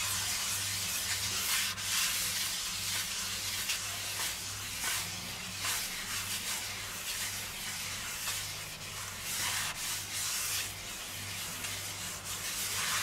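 A wad of kitchen paper rubbing oil around the surface of a nonstick frying pan: a steady scrubbing rustle that swells and eases with the strokes, with a low hum underneath.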